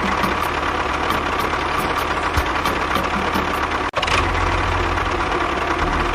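An engine running steadily, with a brief break about four seconds in before it carries on.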